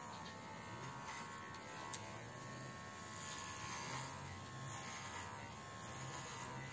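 Baorun P2 cordless pet hair trimmer running steadily with a very quiet, even buzz while clipping a Yorkshire terrier's coat.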